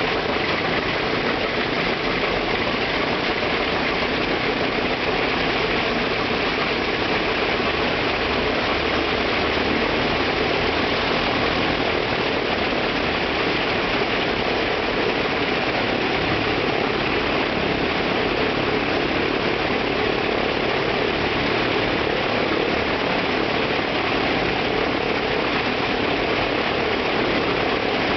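Ilyushin Il-14T's left ASh-82T radial engine running steadily, propeller turning. A loud, even engine and propeller noise with no change in speed.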